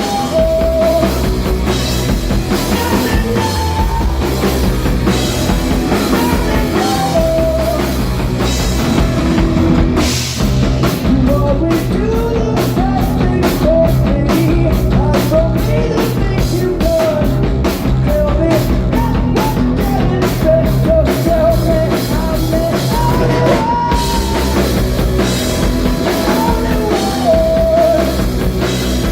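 Rock band playing live, with a drum kit prominent. About a third of the way in the cymbal wash drops away and a steady beat of sharp drum hits, about three a second, carries the music until a few seconds before the end, when the full sound returns.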